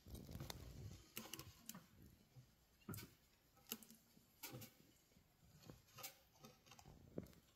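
Faint, irregular dry crackling clicks, roughly one or two a second, from aspen-shaving bedding shifting under a Mexican hognose snake as it moves its head.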